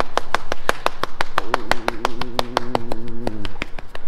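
A hand patting a dog's back and side in quick, even pats, about seven a second. A drawn-out, wavering voice sound runs under the pats for about two seconds in the middle.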